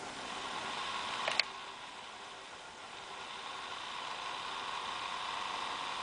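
Acer Aspire 5755G laptop's cooling fan blowing steadily through the side vent, a hissing whir with a hum near 1 kHz. It dips slightly and then grows louder after the middle. A sharp click sounds about a second and a half in. The owner regards the fan as defective for being so loud.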